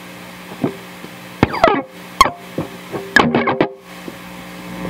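Electric guitar played through a Yamaha DG-60 1x12 combo amplifier: single picked notes and short phrases with gaps between them, over a steady held tone. The playing thickens near the end. This is a play test of the amp after servicing.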